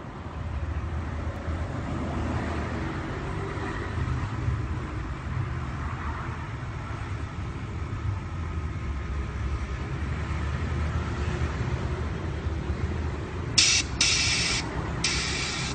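A customised mini motorcycle's hydraulic suspension set-up: a steady low mechanical hum, then near the end two loud bursts of hissing, each about a second long.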